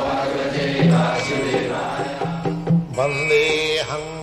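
Indian devotional intro music: chanting over a steady low drone, with short plucked or struck notes coming in during the second half.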